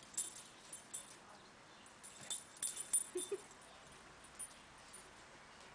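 Dogs playing: a scatter of light clicks and jingles from collar tags and claws, with a brief whine a little past halfway.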